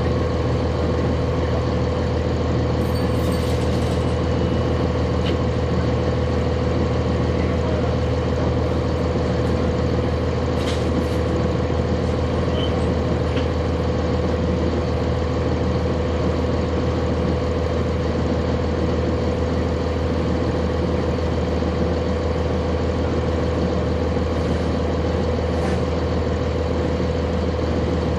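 Cummins ISC inline-six diesel engine of a 1999 Nova Bus RTS, heard from on board the bus, running steadily as a constant low drone with a steady whine above it. A few light clicks come through at times.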